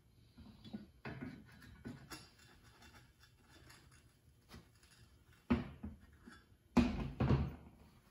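Hands and an aluminium layout square shifting on fiberglass duct board while the V-groove tool is lined up: a few short scuffs and rustles, the loudest two close together near the end.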